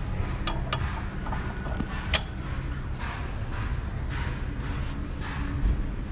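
Metal tools and transmission parts clinking and knocking as they are handled at a shop press, with a sharp metallic click about two seconds in, over a steady low hum.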